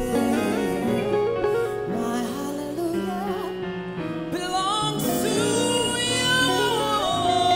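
Live gospel song: a male lead vocalist singing held, wavering notes over instrumental accompaniment.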